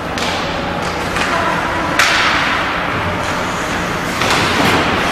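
Ice hockey play echoing around an indoor rink: a series of sharp knocks and clacks from sticks, puck and boards, each with a long echo. The loudest comes about two seconds in.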